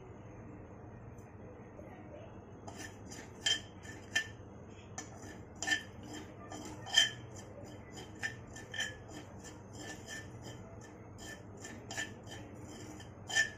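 A spatula stirring poppy seeds as they roast in a metal kadhai, clinking and scraping against the pan with a bright metallic ring. The clinks start about three seconds in and come irregularly, several a second at times, over a steady low hum.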